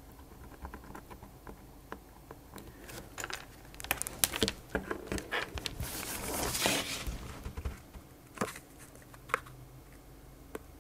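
Amiga A600 mylar keyboard membrane sheet crinkling and crackling as it is handled and flexed, with scattered light clicks and taps; the handling is busiest from about three to seven seconds in.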